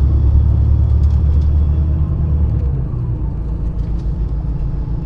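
Steady low rumble of a tour vehicle's engine and road noise heard from inside the moving vehicle, easing slightly a little past halfway.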